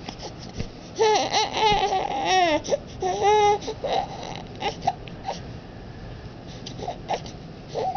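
Two-month-old baby vocalizing: about a second in, a run of high coos with a wavering, wobbling pitch lasting a couple of seconds, followed by a few short little sounds.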